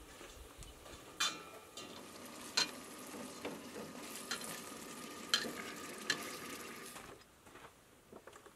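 Chicken pieces frying in hot oil in a steel pot on a camp stove, a faint sizzle while they are stirred, with a few sharp clicks of a utensil against the pot. The sizzle drops away about a second and a half before the end.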